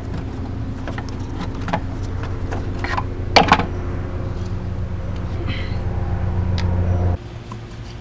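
A steady low mechanical hum that cuts off suddenly about seven seconds in, with a few sharp clicks and knocks of parts being handled, the loudest pair about three and a half seconds in.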